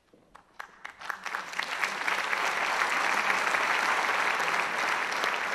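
Audience applauding: a few scattered claps at first, swelling within about two seconds into full, steady applause.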